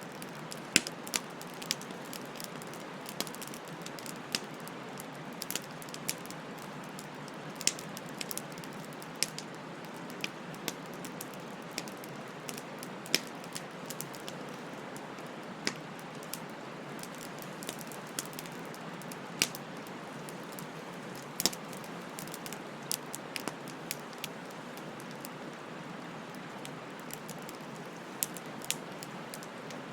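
Wood bonfire crackling: irregular sharp snaps and pops, about one or two a second, over a steady hiss of burning.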